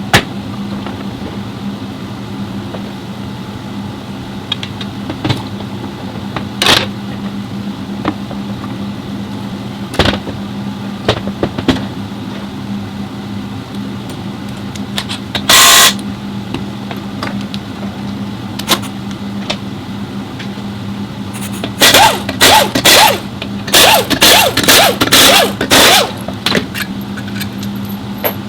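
Workshop work sounds over a steady mechanical hum: scattered metallic clicks and knocks, one longer loud burst about halfway through, and a quick series of short loud bursts near the end.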